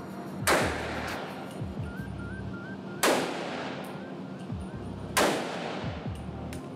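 Three single shots from a Spike Tactical AR-15 pistol chambered in 300 AAC Blackout, about two and a half seconds apart. Each is a sharp crack with a long echoing tail in an indoor range, over background music.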